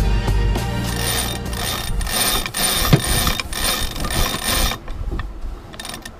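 Sailboat sheet winch being worked, its pawls ratcheting in rapid clicks as the line is wound in. The clicking thins out to a few scattered clicks near the end.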